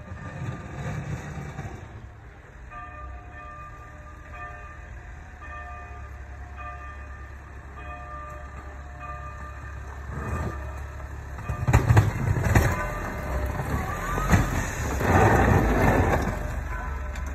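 Fiat Fullback pickup with a Snoway snow plow blade driving up and pushing snow: a low engine rumble throughout, with a pitched beep repeating about once a second in the first half. About ten seconds in it gets louder as the blade pushes and scrapes snow close by, loudest around twelve and fifteen seconds in.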